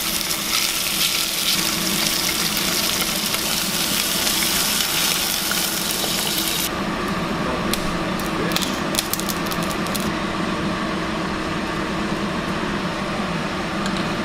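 Fish skin and bones cooking in a saucepan on a gas burner, sizzling. About seven seconds in, the sound changes abruptly to the broth bubbling at a boil, with a few light clicks, over a steady low hum.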